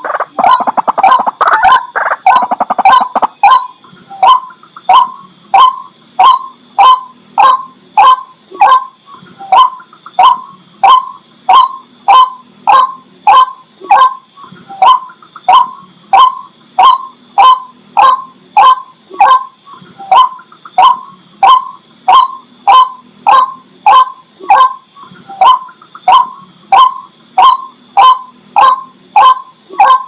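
White-breasted waterhen calling: a jumbled burst of harsh calls in the first few seconds, then a long run of single short, falling notes repeated about twice a second.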